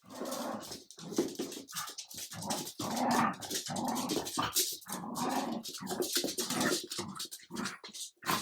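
Dogs growling in a run of short, irregular bursts while a Jack Russell terrier and a French bulldog puppy play-fight.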